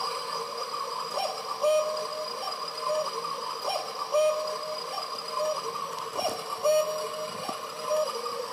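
Electronic cuckoo call of a battery-powered plastic cuckoo clock: short, thin electronic tones, a brief note then a longer held one, repeated roughly every second.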